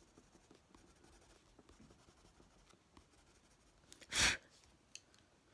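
Faint scratching of a Prismacolor coloured pencil stroking over paper, with small ticks, then one brief loud noise about four seconds in.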